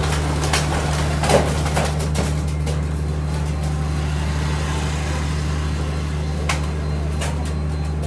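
A steady low mechanical hum, like an idling engine, with scattered clicks and taps during the first three seconds and two more near the end.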